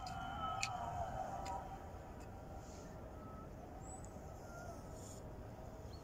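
Faint outdoor garden ambience with a few brief, high bird chirps. A wavering tone fades out within the first two seconds.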